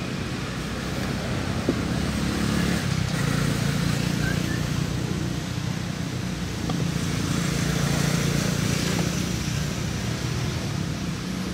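A motor engine running with a steady low hum that swells louder twice and eases off again.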